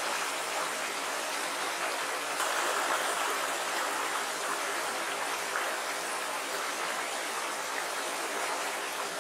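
Small, shallow rocky stream running steadily over stones and riffles.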